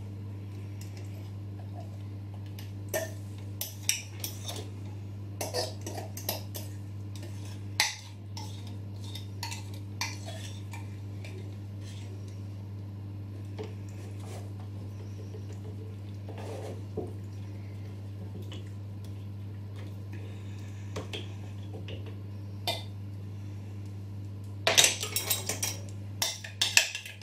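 A metal fork and spoon scraping and knocking against a plastic measuring jug and a metal loaf tin as thick banana bread batter is scraped out, in scattered clinks with a quick flurry of clattering near the end. A steady low hum runs underneath.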